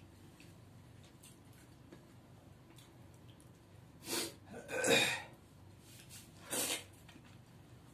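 Mouth noises of a man eating drumstick curry with his fingers, sucking and slurping the pulp from the drumstick pieces: three short, loud noisy bursts in the second half, the middle one longest and loudest.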